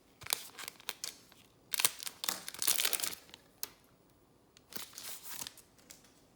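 A trading card pack's wrapper crinkling and being torn open by hand, in two bouts of crackling with a few light clicks before them.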